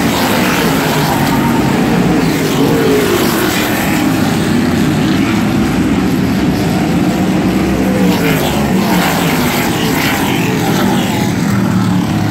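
Modified race cars' engines running around the short track, their pitch rising and falling as they accelerate and lift, loud throughout.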